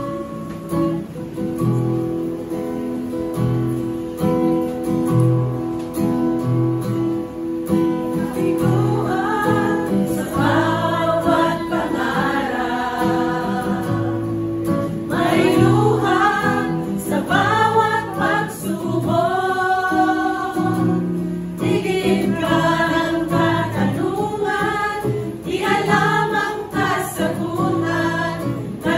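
Women's choir singing a Tagalog gospel song with guitar accompaniment. An instrumental introduction plays for about the first eight seconds before the voices come in.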